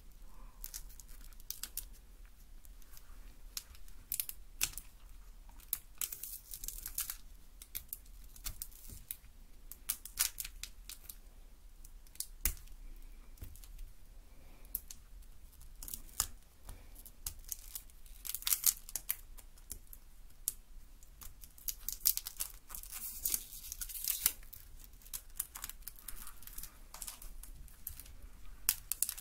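Close-up crinkling, tearing and rustling of handled material, with many small sharp clicks coming in irregular clusters.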